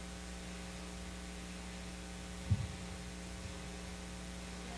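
Steady electrical mains hum on the recording, with one short, low sound about halfway through.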